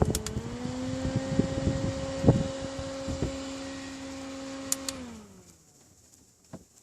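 Mini electric fan motor whirring steadily, stepping up slightly in speed about half a second in, with a few clicks of handling or buttons. Just after five seconds it is switched off and winds down, its pitch falling away to quiet.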